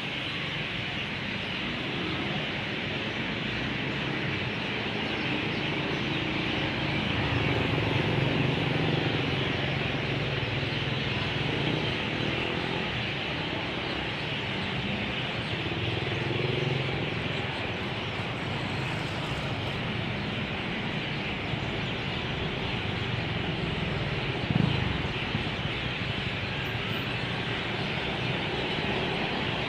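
Outdoor street ambience: a steady hiss over the low rumble of road traffic that swells as vehicles pass, with one brief louder sound a few seconds before the end.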